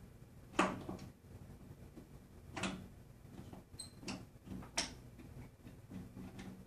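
Irregular clicks and light knocks of strap hooks and buckles as the straps holding a posture rack frame onto a Power Plate Pro5 vibration platform are fastened, with a short metallic ping about four seconds in.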